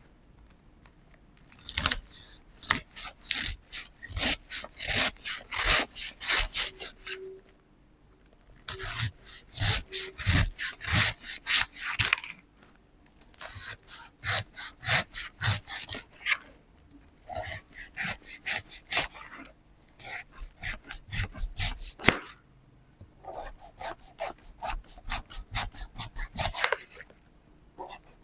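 Knife sawing back and forth through a pineapple's rough rind, several strokes a second, in runs of a few seconds with short pauses between.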